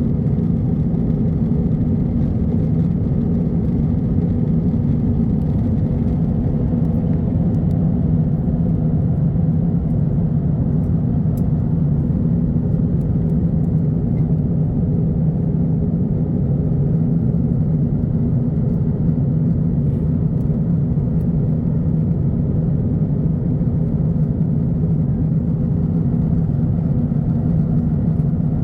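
Steady low drone of a jet airliner's cabin in flight: engine and airflow noise, even throughout with no change.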